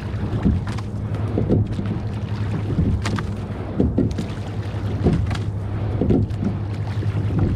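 Coastal rowing boat under way: the oars work in a steady rhythm, with short splashes and knocks about once a second over a steady low hum.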